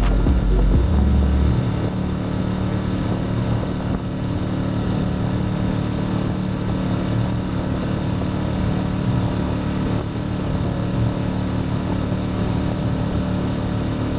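Small boat motor running steadily at a constant pitch. A low rumble, like wind on the microphone, sits under it for the first second or so.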